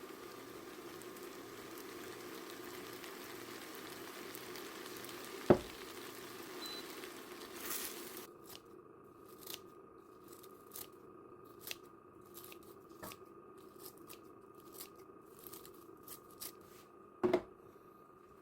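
A steady low hum with a hiss that stops about eight seconds in, then scattered light clicks and rustles of small things being handled, with a sharp knock about five seconds in and another, louder, near the end.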